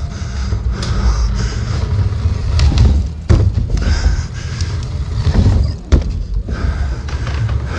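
Dirt jump bike being ridden over a dirt track: a loud, constant rumble with a few sharp knocks from bumps and landings, about three seconds in and again near six seconds.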